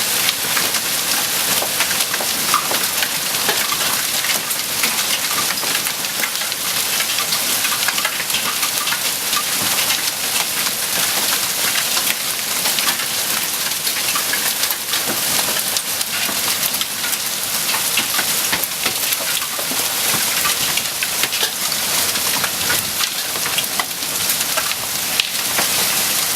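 Quarter-sized hailstones falling in a storm, a steady dense clatter of countless small hits on the ground and surfaces.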